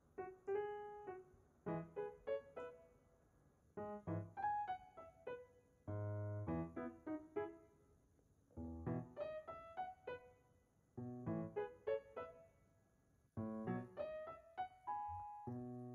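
Background piano music, played in short phrases with brief pauses between them.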